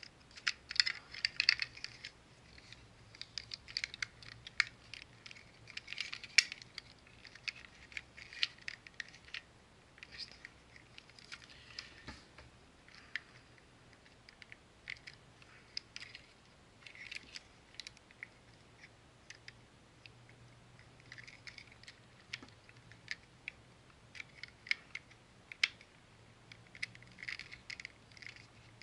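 Hard plastic parts of a transforming robot action figure and its add-on upgrade pieces being handled and pressed together: many scattered sharp clicks, taps and scrapes, irregular throughout.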